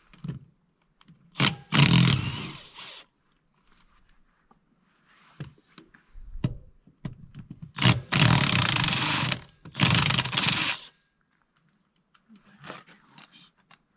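Power impact wrench run in three short bursts of a second or so each, trying to break loose the front wheel bolts on an International 1256 tractor. Small knocks come between the bursts.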